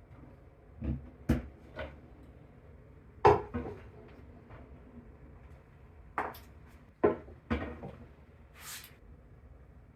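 Hard objects being handled while a floating shelf is put up on a wall: irregular knocks and clunks, a few sharp and loud, the loudest about a third of the way in. A short rustling scrape comes near the end.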